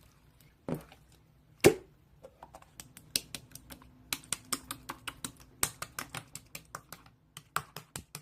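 Two louder knocks in the first two seconds, then a quick run of short, sharp clicks, about three or four a second, like fingers tapping keys.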